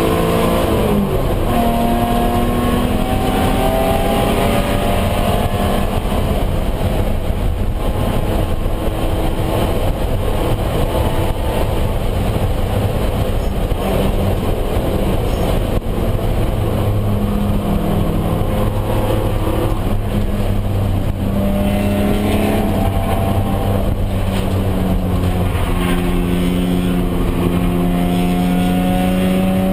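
BMW race car's engine heard from inside the stripped cabin under hard driving, its pitch climbing through the revs several times near the start and again in the last third, with steadier running between, over constant road and wind noise.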